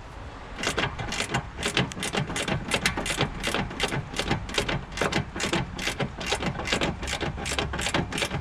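Socket ratchet clicking in quick, uneven runs of strokes, tightening a bolt down. The clicks start just under a second in.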